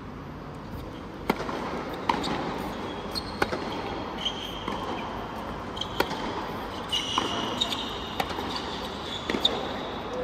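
Tennis rally on a hard court: crisp racket-on-ball strikes about once a second, with short high squeaks from shoes on the court surface and a low crowd murmur underneath.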